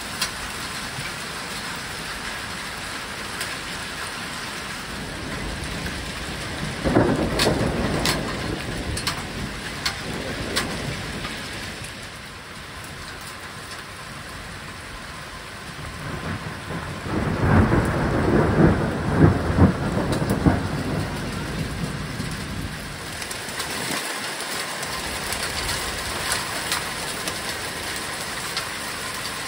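Thunderstorm: heavy rain mixed with hail falls steadily. A roll of thunder rumbles about seven seconds in, and a second, louder one comes a few seconds past the middle.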